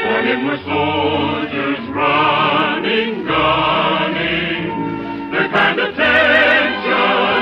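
Choir singing with orchestral accompaniment in an operetta ensemble number. The voices sing with a wide vibrato in phrases about a second long, and the recording sounds thin and band-limited.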